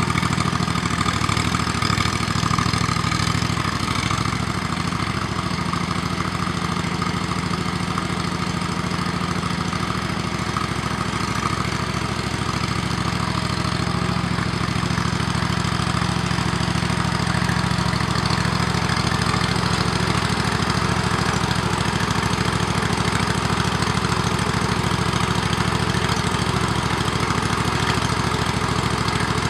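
25 hp Briggs & Stratton engine of a single-axle hydraulic-drive tractor running steadily at a constant speed.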